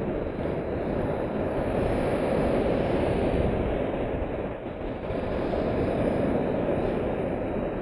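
Surf breaking and washing up the beach right beside the microphone: a steady, deep rumbling wash of waves, easing briefly a little past halfway before building again.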